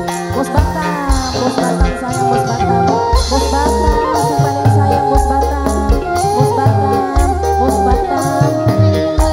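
Live dangdut street music: a singer's melody over a repeating drum and bass beat, with a shaken rattle keeping time.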